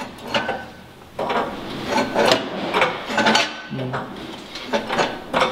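Tool work on a car's front lower control arm as the old uniball bearing is pushed out: irregular metallic knocks and scrapes, several strokes a second or so apart.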